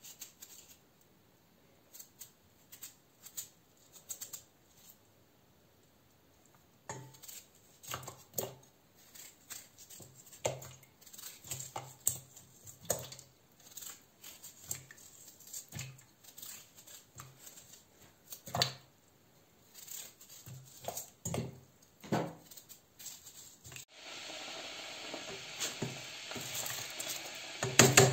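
Light clicks, taps and knocks of kitchen items being handled, scattered irregularly. Near the end comes a steady hissing rush lasting about four seconds, which cuts off sharply.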